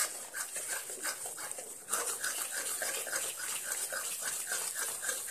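Metal spatula stirring and scraping thick banana paste in ghee around a steel kadhai, in repeated quick strokes about three a second.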